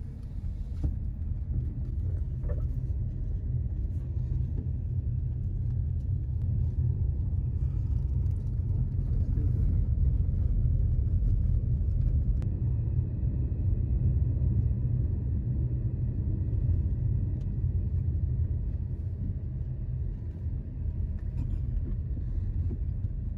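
Low steady rumble of a car driving, with a few faint clicks.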